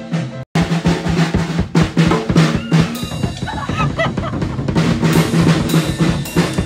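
Acoustic drum kit beaten by a toddler and an adult together: fast, uneven strikes on the toms, snare and cymbals. The sound drops out briefly about half a second in, then the pounding resumes.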